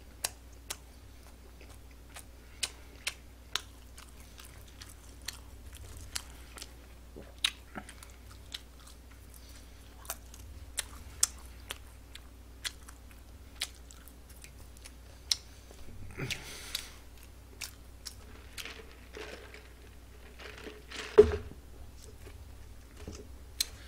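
A person chewing fried fast food close to the microphone, with crisp crunches coming as scattered sharp clicks. There is a rustle about two-thirds of the way in and a single louder knock near the end.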